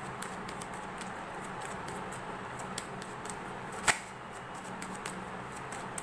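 Tarot cards being handled and shuffled: a scatter of soft card flicks and ticks, with one sharper snap about four seconds in, over a faint steady hum.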